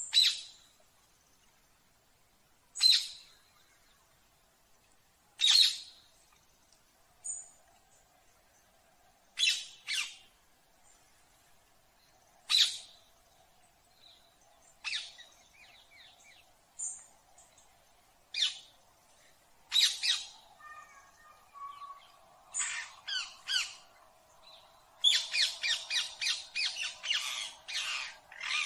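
Ring-necked parakeet (Indian ringneck) giving sharp, high squawking calls, one every two to three seconds at first, then a quick run of many calls in a row near the end.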